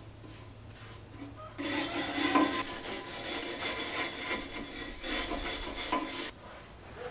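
Surface work on an overhead steel beam: a steady rough hiss that starts suddenly, breaks briefly about five seconds in, and cuts off a little after six seconds. It is part of degreasing and rust-proofing the beam.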